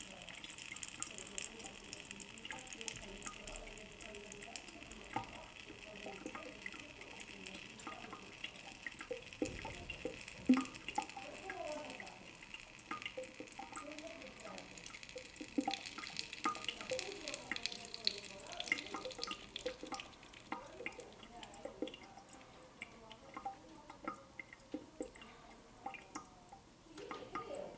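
Thin streams of water trickling and splashing into a sink, with scattered drips throughout and one sharper click about ten seconds in.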